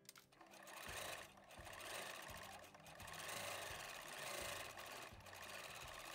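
Domestic electric sewing machine stitching steadily, its motor and needle running as it sews through denim and a flexible LEGO-stud tape; it picks up about a second in.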